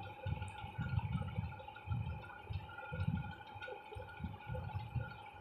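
Spoon stirring and scraping thick chicken masala in a steel kadhai: soft, dull strokes that come irregularly about once a second, over a faint steady hum.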